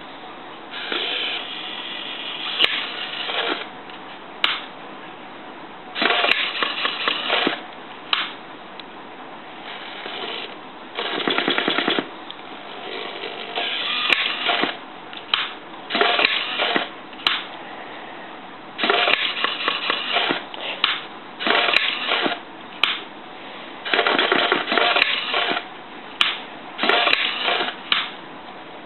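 Homemade wooden useless box at work: its small electric motor whines in many short bursts of different lengths as the arm and lid move, with sharp clicks of the toggle switch being flipped on and knocked back off and of the wooden lid closing.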